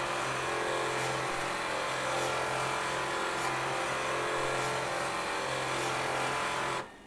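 Floppy drives and stepper motors played as a musical instrument, buzzing a long held chord over a low bass note, with faint ticks about once a second. It cuts off suddenly near the end.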